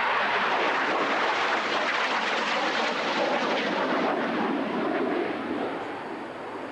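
Harrier jump jet's Rolls-Royce Pegasus turbofan, a loud, steady rushing jet noise as the aircraft flies its display overhead, easing off a little near the end.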